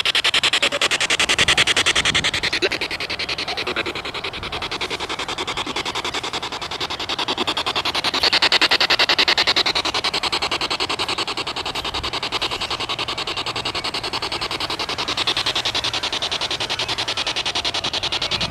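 SB7 spirit box in reverse sweep, scanning through radio stations, played through a Goal Zero portable speaker: a steady, loud hiss of static chopped into rapid, even pulses.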